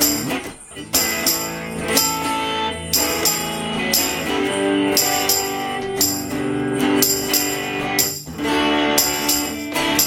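Semi-hollow electric guitar strummed through an instrumental passage between sung lines, with a sharp high-pitched percussive accent on the beat about once a second.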